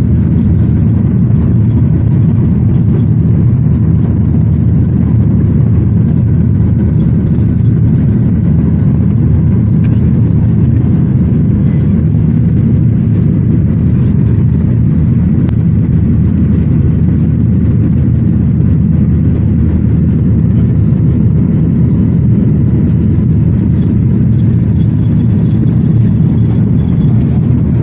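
Boeing 737 jet engines at takeoff power, a loud, steady, low rumble that does not change in level.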